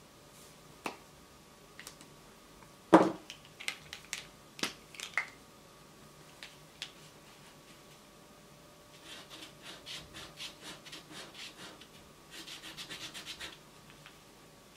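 Felt tip of a Posca paint marker scratching across paper in short rapid strokes, quickening near the end. Earlier, a few sharp clicks and knocks as the marker is handled, the loudest about three seconds in.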